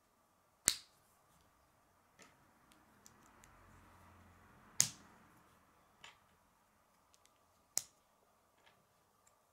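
Plastic K'nex connectors and rods being pressed together by hand: three sharp snapping clicks, about a second in, about five seconds in and about eight seconds in, with fainter clicks of plastic parts being handled between them.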